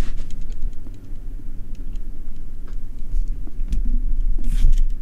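Handling noise from a handheld camera being moved and pointed at the floor: a steady low rumble with scattered small clicks and a rustle about four and a half seconds in.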